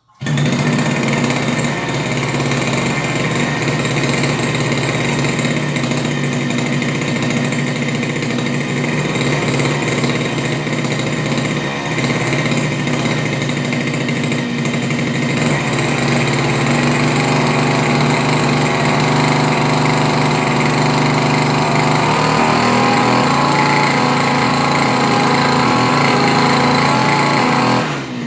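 A small motor running steadily and loudly, with a buzzing, rattling tone.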